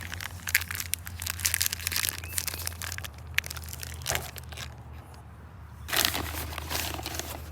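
Crinkling and rustling of packaging as engine rebuild-kit parts are unwrapped and handled, with a steady low hum underneath. The rustling drops off briefly about two-thirds through, then resumes.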